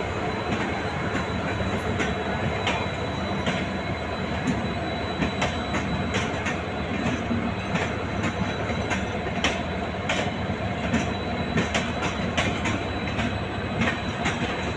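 Indian Railways LHB passenger coaches rolling past: a steady rumble of steel wheels on rail, with frequent sharp clicks as the wheels cross rail joints and a thin, steady high whine from the wheels.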